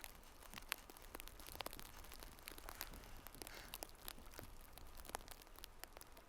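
Campfire crackling faintly: many small, irregular snaps and pops of burning wood.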